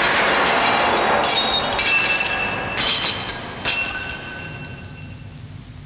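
Glass shattering with a loud crash, then shards clinking and ringing as they fall, in about three tinkling bursts that fade out.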